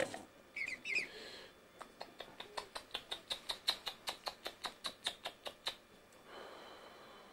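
Mute swan and cygnets at close range: two short high squeaky calls, then a rapid run of about twenty short high clicks or peeps, roughly five a second, for about four seconds.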